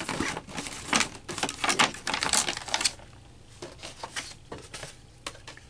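Paper manuals and a clear plastic packaging tray being handled, a dense rattle of clicks and rustling for about three seconds, then a few scattered clicks.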